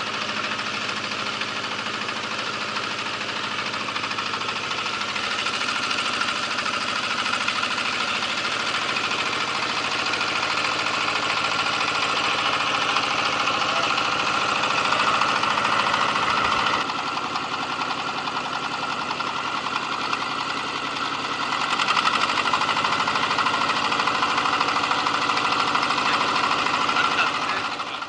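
Boat engine running steadily, a continuous mechanical drone with no change in speed.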